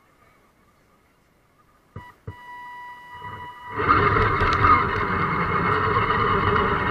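Electric motor and geared drivetrain of a radio-controlled scale crawler, heard from a camera on the truck. About two seconds in there are a couple of clicks, then a steady motor whine. A little before four seconds in it becomes a much louder whine and rumble as the crawler drives off up the dirt trail.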